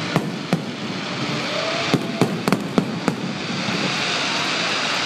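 Fireworks display: a string of sharp shell bursts over the first three seconds, set in a steady hiss, which carries on alone after the last bang.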